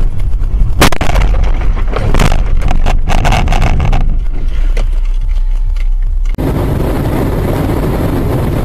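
A car collision heard through a dashcam microphone inside the car: a sudden bang about a second in, then a few seconds of crunching and scraping over a low engine and road rumble. Near the end it gives way to the steady rush of road and wind noise from a car driving along.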